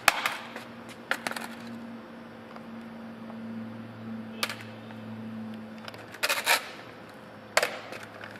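A few sharp, scattered clicks and knocks, one of them a close pair, over a faint low steady hum.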